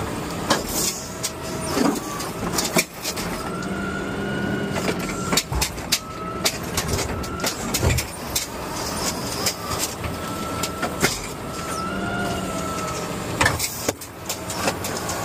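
Garbage truck's hydraulic automated side-loader arm gripping a trash cart, lifting it and tipping it into the hopper. The engine and hydraulic pump whine rise and fall in long swells as the arm works, with repeated clanks and knocks from the gripper and cart.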